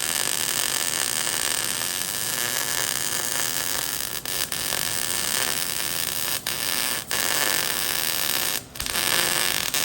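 Wire-feed welder arc burning steadily through a weld bead, a constant, nice crackle, broken by a few short gaps in the last half before the trigger is released. The steady crackle is the sign of a good arc length and travel speed.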